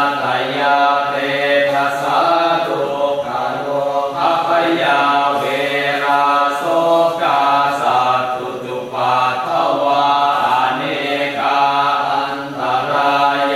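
Thai Buddhist chanting in Pali: voices reciting without a break on a near-monotone, the pitch stepping slightly from syllable to syllable.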